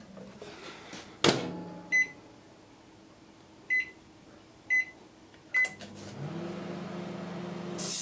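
Panasonic inverter microwave being started: a single clunk as the door shuts, then four short beeps from the keypad as the power buttons are pressed. The oven then starts up, its inverter hum rising briefly in pitch and settling into a steady drone, with a short burst of noise near the end as the light bulb inside flares.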